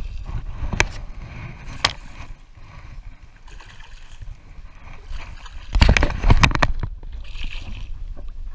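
Hooked redfish thrashing at the water's surface beside a small skiff, slapping and splashing: two sharp splashes in the first two seconds, then a burst of several hard splashes past the middle.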